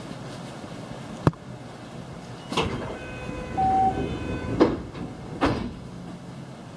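Local electric train's sliding passenger doors closing at a station stop: a sharp click, then several knocks as the doors shut, with a short beep in between.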